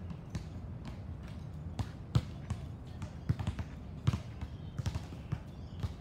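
Basketballs bouncing on an outdoor court, an irregular series of thuds.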